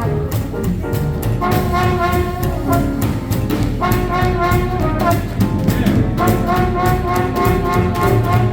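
Small hot-jazz swing band playing an instrumental chorus: horns play held riff notes together over a steady four-beat rhythm section.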